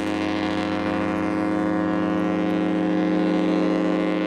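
Ship's horn of the cruise ship Celebrity Millennium sounding one long, steady blast, its departure signal as it leaves the pier.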